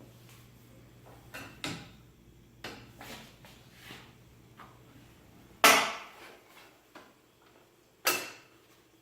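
Rollers being set back into a lift table's roller platform: a series of knocks and clunks, with two loud clanks, one about halfway and one near the end. A faint low hum stops at the first loud clank.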